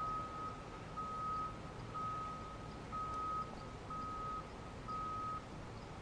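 Vehicle reversing alarm beeping: a single steady high tone repeating about once a second, six beeps in a row.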